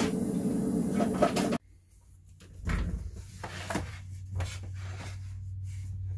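A steady noisy hum that cuts off abruptly about a second and a half in. Then a felt-tip marker scratches across a wooden board, with a few sharp wooden knocks as the board is handled on the table and a low hum underneath.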